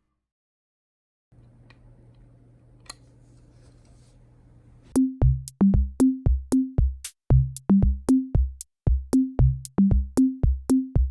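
Background music: after a brief silence and a faint low hum, an electronic drum-machine beat starts about five seconds in, a steady pattern of deep kick-drum hits.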